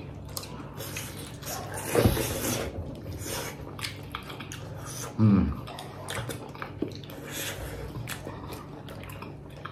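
Chewing and mouth noises of someone eating buff momos close to the microphone: wet clicks and smacks. A short, low voice sound comes about five seconds in.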